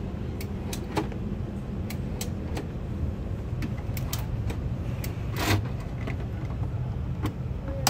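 Steady low hum of an Airbus A330-300 cabin before departure, with scattered light clicks and knocks and a brief louder rustle about five and a half seconds in.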